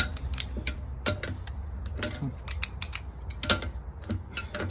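Pliers gripping and turning a threaded galvanized steel pipe elbow, giving a string of irregular sharp metal clicks and scrapes as the fitting is tightened, over a steady low rumble.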